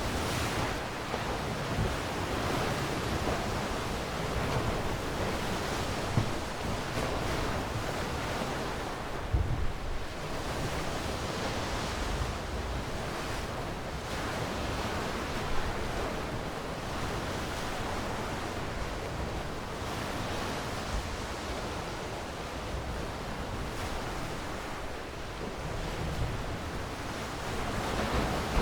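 Ocean waves washing on a shore, a continuous surf rush that swells and ebbs. A few brief low thumps of wind buffet the microphone.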